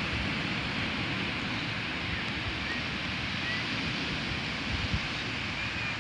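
Ocean surf breaking and washing up a sandy beach in a steady hiss, with wind gusting on the microphone.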